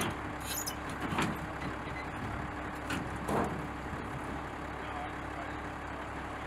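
A large vehicle engine, truck-like, running steadily, with a few short knocks or clicks over it.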